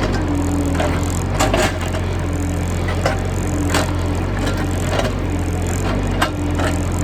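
Excavator's diesel engine running steadily, with a tone that rises in and out and several sharp knocks and cracks as the bucket breaks into a termite mound.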